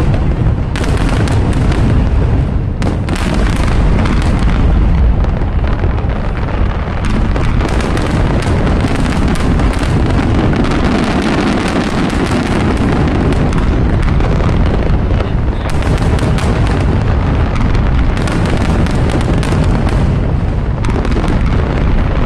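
Large aerial fireworks going off in a dense barrage, with rapid overlapping booms and crackles and no break between them.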